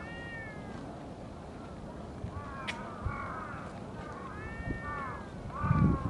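Several short mewing calls from an animal, each rising then falling in pitch, some in quick pairs, with a low rumble coming in near the end.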